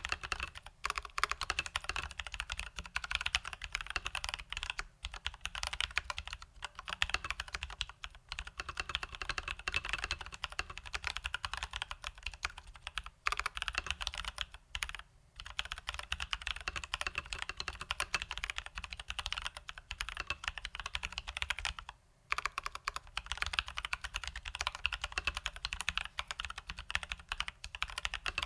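Steady fast typing on a Leopold FC980M mechanical keyboard with Durock T1 tactile switches lubed with Krytox 205g0, under its stock keycaps: a dense run of key clacks, broken by a few short pauses.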